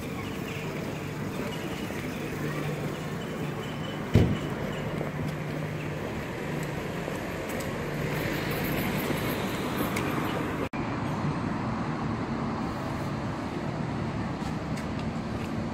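Street traffic noise: a steady wash of road noise with a low engine hum from passing vehicles, and one loud thump about four seconds in.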